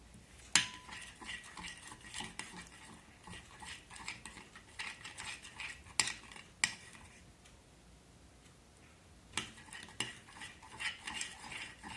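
A utensil stirring homemade slime in a container, with repeated scraping and clinking against the sides as the glue and activator mixture is worked while still lumpy. The stirring pauses briefly about three-quarters of the way through, then starts again.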